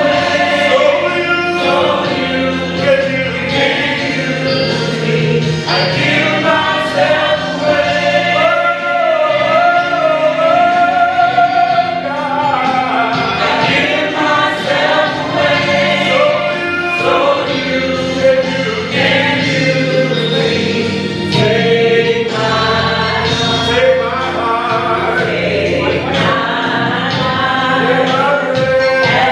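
Gospel choir singing a worship song with musical accompaniment, voices holding long wavering notes around the middle.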